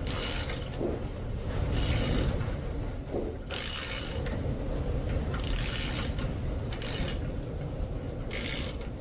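Ratchet wrench clicking in about six short strokes, roughly one every one and a half seconds, as it tightens the rear wheel hub nut on a Dodge Ram 2500 axle. A steady low rumble runs underneath.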